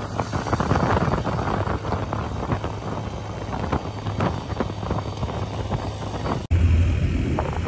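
A motor vehicle running steadily, with a constant low engine hum under a rushing noise like wind on the microphone. The sound cuts out for an instant about six and a half seconds in, then carries on with the low hum stronger.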